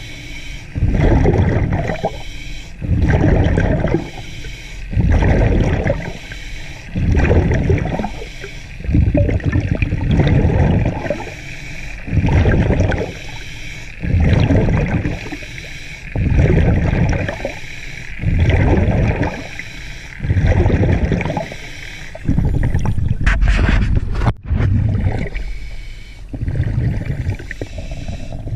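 Underwater scuba breathing through a regulator: bubbling, hissing bursts about every two seconds. A couple of sharp clicks sound a few seconds before the end.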